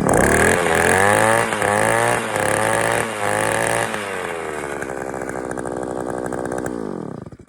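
Freshly repaired gas-powered post hole auger engine running after starting on a new fuel line, primer bulb and spark plug. It is revved up and down several times in the first few seconds, then runs steadier at a lower speed, winds down near the end and stops.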